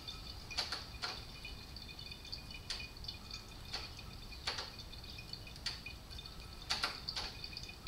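Brake fluid dripping from the bleed hose into a catch bottle while a motorcycle's rear brake is bled: about eight soft drips at irregular intervals, faint.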